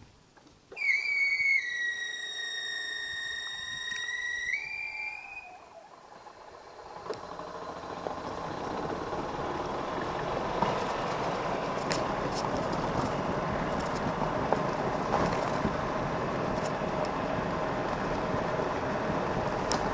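Golf cart on a gravel road: a steady high-pitched whine for about five seconds near the start, then the rough crunch and rumble of its tyres rolling over gravel, building up from about seven seconds in, with scattered clicks of stones.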